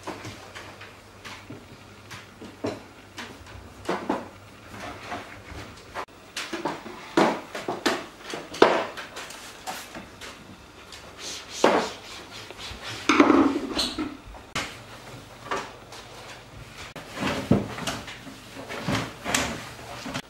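Household cleaning of kitchen cabinets and a stainless-steel range hood: irregular knocks and taps on the cabinet doors and hood, cloth rubbing, and squirts of a trigger spray bottle.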